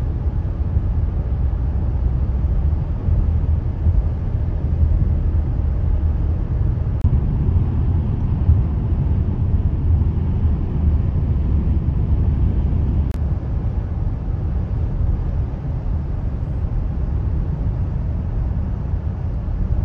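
Steady low rumble of a car driving on a paved highway, its road and engine noise heard from inside the cabin.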